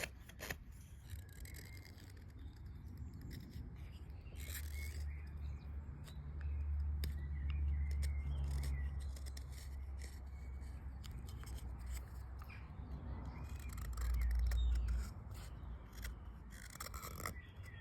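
Carving knife cutting wood on a spoon blank: a run of short, crisp slicing clicks. Birds chirp in the background, and a low rumble swells in the middle and again near the end.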